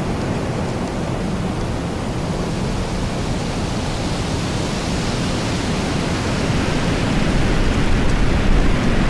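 Steady rushing noise of a car driving slowly: road and wind noise picked up by the onboard camera, getting a little louder near the end.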